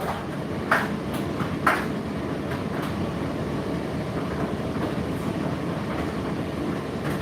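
Indesit IDC8T3 8 kg condenser tumble dryer running with a steady, even drum rumble. A few sharp knocks come in the first two seconds.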